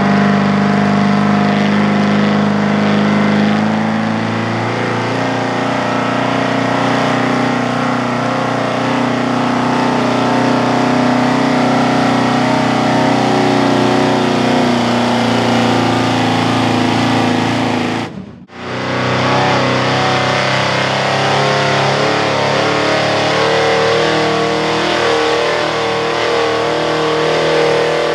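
Chevrolet pickup truck engine running hard at high revs under full load as it drags a weight-transfer pulling sled, loud and steady with the pitch shifting a little as the pull goes on. About two-thirds of the way through the sound cuts off suddenly, and another Chevrolet pickup's engine is heard pulling the sled, with the revs climbing near the end.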